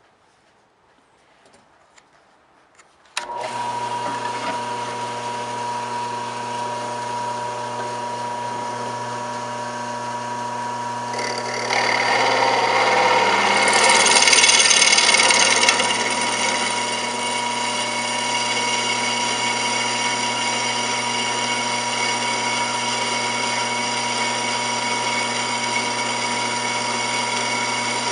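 An electric power tool switches on about three seconds in and runs at a steady speed with a constant hum and whine. From about twelve to sixteen seconds it grows louder and harsher with a hiss, then settles back to a steady run.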